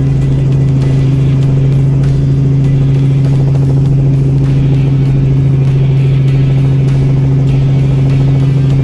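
Robinson R44 helicopter in flight: its six-cylinder Lycoming piston engine and rotors make a loud, unchanging low drone with a strong steady hum.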